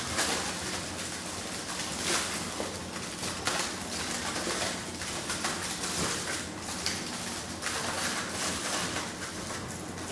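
Aluminium foil crinkling and crackling as it is peeled back from a wrapped hot dog, with a stream of small irregular crackles throughout.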